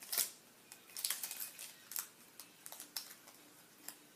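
Scissors snipping through the foil wrapper of a trading-card pack, with the wrapper crinkling: a run of irregular, sharp snips and crinkles.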